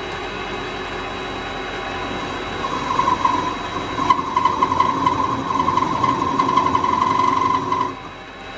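Vevor MX400 mini lathe running at about 500–600 RPM. About two and a half seconds in, the cutting tool meets the spinning rod end to cut a chamfer, adding a high, wavering whine over the motor hum that stops shortly before the end.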